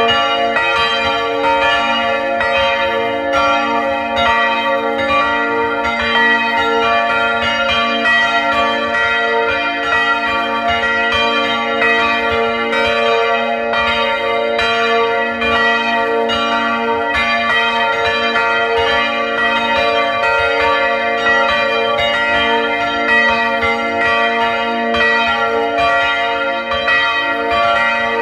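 Full peal of a chapel's three swinging church bells, heard from inside the belfry: their clapper strikes overlap continuously, each bell ringing on into the next strike.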